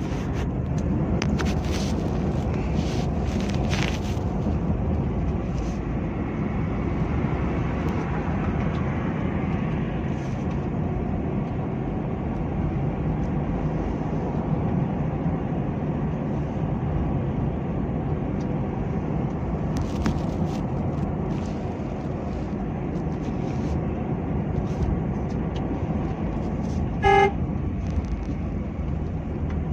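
Steady low rumble of a vehicle driving through traffic: engine and tyre noise. One short car horn honk sounds near the end.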